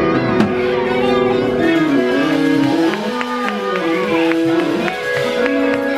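Church band music playing: sustained chords with guitar, the notes held and changing every second or so.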